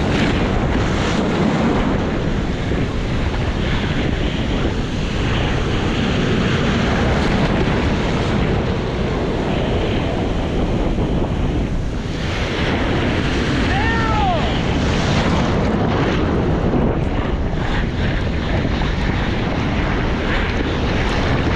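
Shore break crashing and whitewater churning right around a surfboard being paddled out, with water and wind rushing over a low action camera's microphone.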